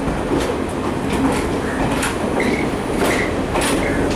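Sri Lanka Railways diesel multiple unit (power set) carriages rolling past at low speed, wheels clicking over the rail joints with a steady rumble and a few short squeaks near the end.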